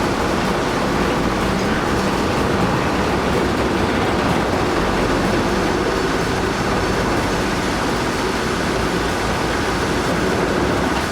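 Heavy vehicle running, a loud steady mechanical rumble with a constant drone.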